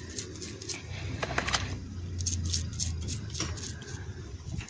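Toothbrush bristles scrubbing the leaves of a succulent to clear off aphids, a quick irregular run of short scratchy strokes, over a low steady rumble.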